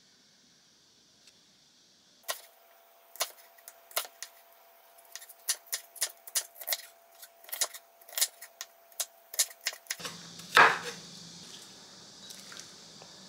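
Kitchen knife chopping an onion on a wooden cutting board: a run of sharp taps of the blade on the board, starting about two seconds in, a few strokes a second. About ten seconds in a faint steady room hum comes up, with one louder knock on the board.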